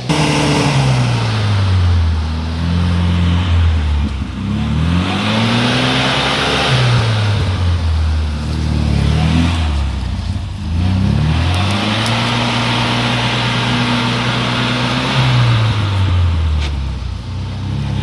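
Off-road 4x4's engine revving up and dropping back again and again, with a steadier stretch about two thirds of the way through.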